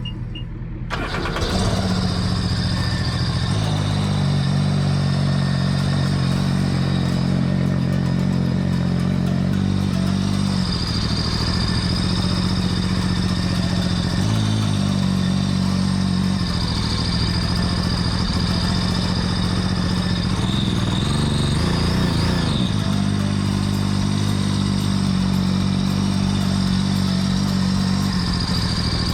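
Mini jet boat's three-cylinder engine running at idle, coming in about a second in and holding a steady pitch with small step changes in speed. Around two thirds of the way through, its pitch rises and falls briefly.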